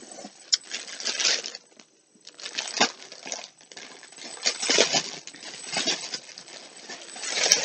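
Irregular rustling and crinkling of packaging in a run of short bursts with a few sharp clicks, as a folded blanket is handled and lifted out of a subscription box. The loudest burst comes near the end.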